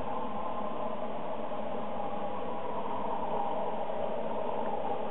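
Steady hiss of steam from a working Accucraft SM32 live-steam Welsh Highland Railway Garrett as it labours uphill, even throughout with no separate chuffs.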